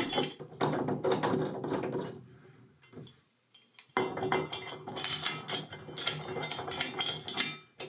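Metal tub spout scraping and clinking against a brass pipe nipple as it is pushed on and turned by hand, in two spells of handling separated by a pause of about a second and a half.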